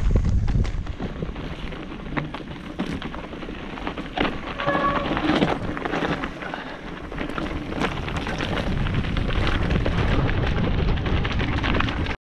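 Mountain bike riding a dry singletrack covered in leaves and grass. The tyres roll over leaf litter, the bike rattles with many sharp knocks, and wind rumbles on the camera microphone. A brief ringing tone comes about five seconds in.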